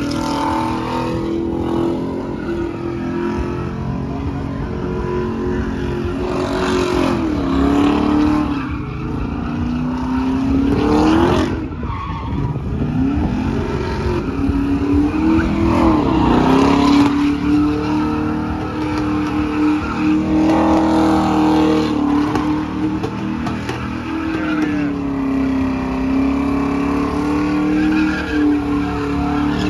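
A car's engine held at high revs in a burnout, its tyres spinning and screeching against the pavement. The engine note stays high and steady, dipping and climbing back a few times in the first half.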